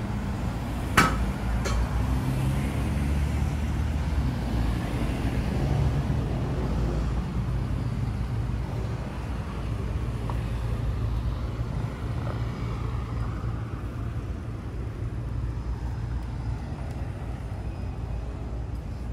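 City street ambience: passing road traffic as a steady low rumble, with a sharp click about a second in and a fainter one just after.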